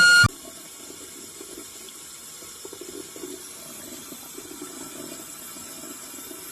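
A music note cuts off just after the start, followed by a faint, steady sound of running water, like a tap left running.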